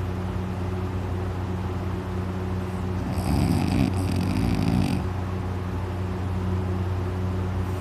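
A man snoring in deep sleep: one long, loud snore about three seconds in, lasting nearly two seconds, over a steady low hum.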